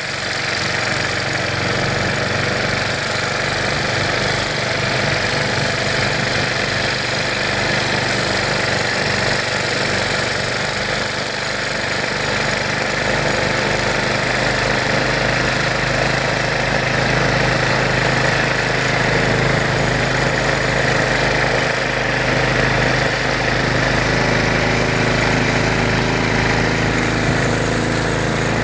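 An engine running steadily at an even speed, building up over the first second or two.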